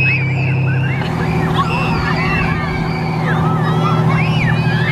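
Fire truck engine running steadily to drive the pump for the hose spray, its low hum shifting slightly about a second in. Children's high shrieks and squeals rise and fall over it.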